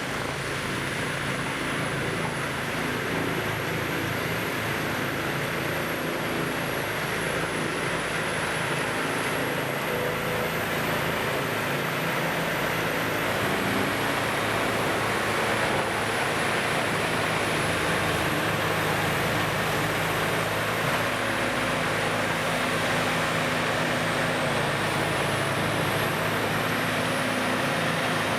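CBI Magnumforce 5400 Multiflex grinder running steadily: a big engine drone under a broad mechanical din, growing slightly louder, with a faint high whine that drifts up and down in pitch.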